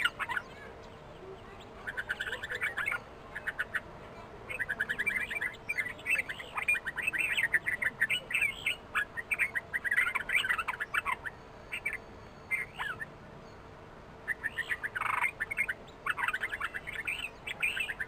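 Red-vented bulbuls giving quick chattering calls in bursts of rapid notes, with short pauses between the bursts.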